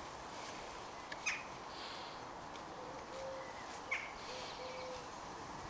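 Quiet outdoor ambience with a few short, faint bird chirps, one about a second in and another about four seconds in, and two brief soft tones between them.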